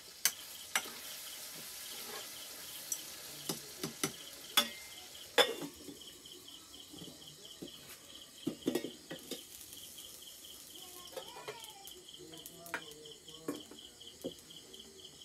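Metal spatula knocking and scraping against a pan as food is stirred over a wood fire, with frying sizzle in roughly the first five seconds. Crickets chirp steadily behind it in a fast pulsing rhythm.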